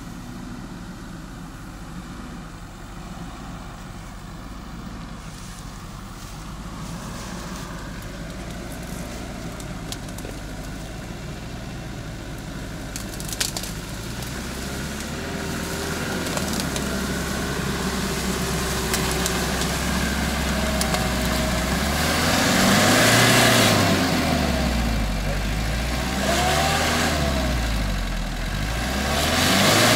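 Off-road SUV's engine approaching through a mud puddle, growing steadily louder, then revving up and down over and over in the last third as the car works its wheels through the mud.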